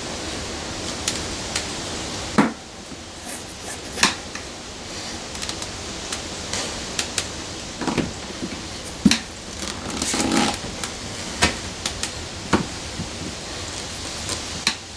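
Tire irons clicking and knocking against a motorcycle wheel rim and its bead savers as a tube-type tire is levered off in small bites, over a steady low hiss. A short scraping rush about ten seconds in.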